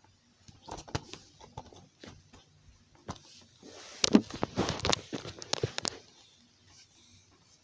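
Plastic Blu-ray case being handled and turned over in the hands: scattered clicks and knocks, then a denser run of rustling and clicking about four to six seconds in.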